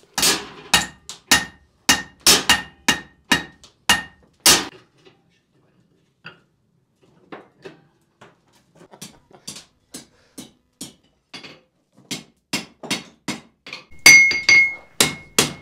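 A blacksmith's hand hammer strikes an iron rod on an anvil, about two blows a second, forging a coal rake. Many blows leave a bright ring from the anvil. Midway the blows pause, then come back as lighter taps, and they grow heavy again near the end.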